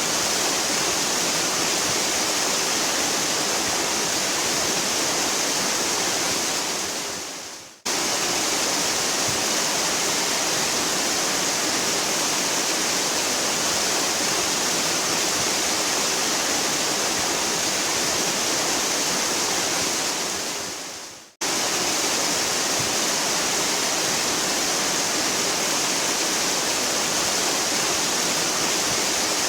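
Waterfall rushing, a steady heavy hiss of falling water. Twice, about a quarter of the way in and again about two-thirds through, it fades away to silence and then cuts straight back in.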